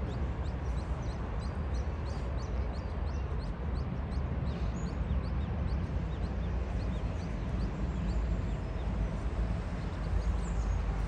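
Mallard ducklings peeping: a continuous string of short, high, falling peeps, several a second, over a steady low rumble.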